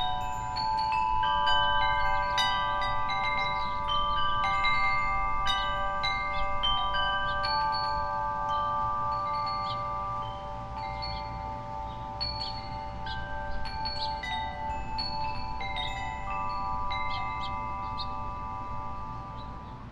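Wind chime ringing, its notes struck many times at irregular moments and ringing on over one another. The strikes are thickest in the first half and the ringing grows quieter about halfway through.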